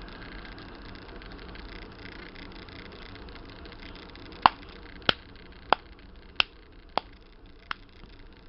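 Six sharp taps, evenly spaced about two thirds of a second apart, starting about halfway through, over a steady low background hum.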